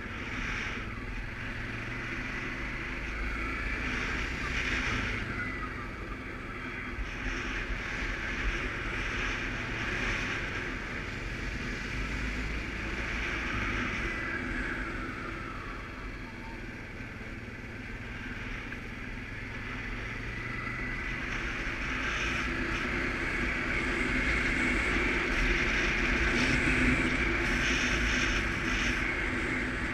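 Suzuki KingQuad ATV engine running steadily while riding, with wind noise on the microphone; the sound grows louder over the second half.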